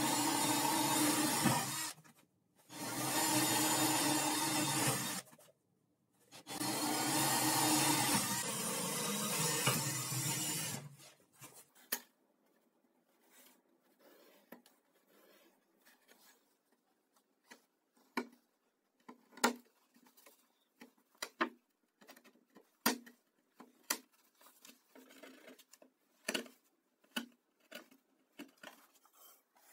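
Cordless drill running as it bores through a plywood sheet, in three runs with short breaks over the first ten seconds or so. After that, only scattered light taps and clicks of hand tools set on the board.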